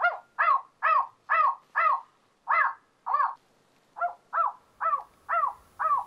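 Spotted owl survey calls played through a FoxPro electronic caller's speaker: a run of short, barking notes, about seven, then a brief pause about three seconds in and about six more.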